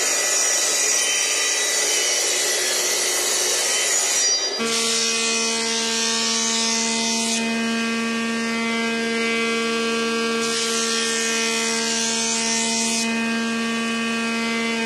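A table saw cutting wood: a rough rasping hiss for the first four seconds or so. Then the saw runs with a steady whine, and brighter hiss comes twice as small wooden pieces are fed through the blade.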